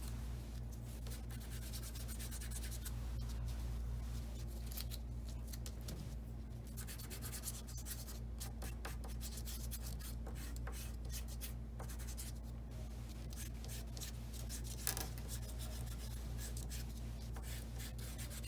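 Chalk rubbing over black construction paper in quick repeated back-and-forth strokes as an area is colored in. A steady low hum runs underneath, and there is one sharper tick near the end.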